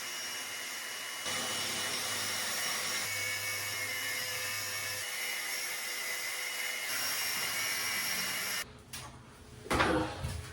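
A power tool runs steadily, a little louder from about a second in, then stops. A few sharp knocks follow near the end.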